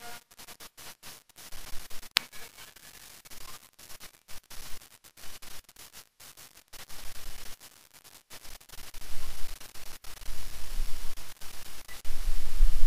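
Faint hiss of a distant outdoor recording, broken by many brief dropouts. A low rumble builds from about nine seconds in and is loudest near the end.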